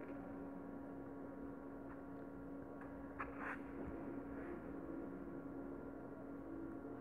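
A steady low hum, with a brief soft rustle and a few faint clicks about three seconds in as pearl beads and nylon thread are handled.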